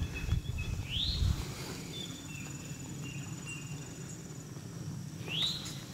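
Insects trilling steadily in the woods at several high pitches, with a bird giving a short rising call twice, about a second in and again near the end. A low rumble lies underneath.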